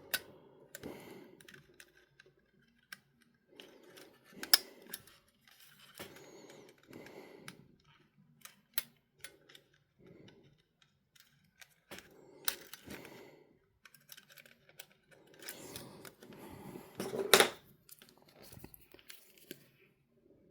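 Small plastic and metal parts of a portable MiniDisc player being handled and worked on with small tools: irregular faint clicks, taps and short scrapes, with a few sharper clicks, the loudest about three-quarters of the way through.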